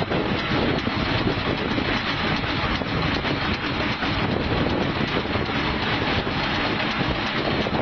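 Machinery running steadily, a dense noise with fine rapid ticking.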